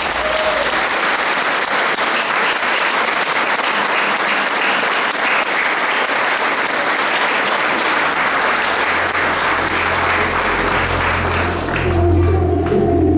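A crowd applauding with steady, dense clapping. Low music tones come in about two-thirds of the way through, and music grows louder near the end as the clapping dies away.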